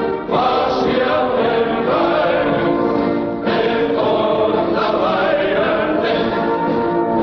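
A choir singing a national anthem, held notes changing about once a second, with short breaks between phrases near the start and about three and a half seconds in.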